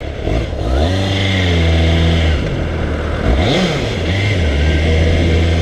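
Kawasaki ZXR400 inline-four engine revving under way: its pitch climbs and holds, drops back a little after two seconds, gives a quick rev near the middle, then climbs again and holds.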